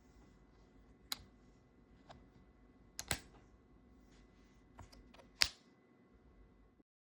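Keychron K8 HE keyboard with magnetic Hall-effect switches being typed on: irregular keystrokes, a few louder clacks among softer taps, stopping suddenly near the end.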